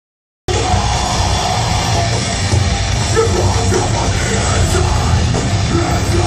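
Loud heavy rock from a live band, with strong bass, starting abruptly about half a second in.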